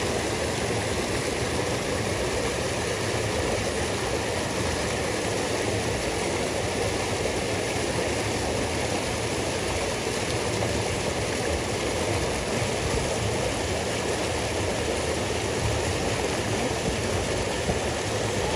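Rushing river water pouring over a rock ledge into a churning pool, a steady, even rush.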